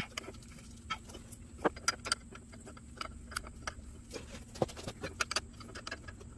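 Wrench clicking and tapping on the steel fuel-line fitting as it is threaded and tightened onto a new mechanical fuel pump. Irregular sharp metallic clicks, a few louder ones about two seconds in and again near five seconds.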